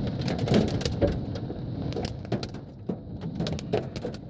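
Hailstones of about dime-to-nickel size pelting the roof and body of a car, heard from inside the cabin as a dense, irregular clatter of hard clicks and knocks.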